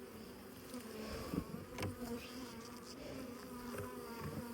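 Honeybees buzzing around an open hive, a steady hum with a few faint knocks.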